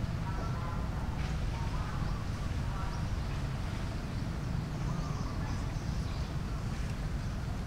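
Outdoor forest ambience: a steady low rumble with faint short calls, mostly in the first few seconds.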